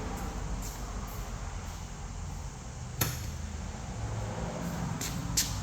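A sharp click about three seconds in and another near the end, over a steady low rumble.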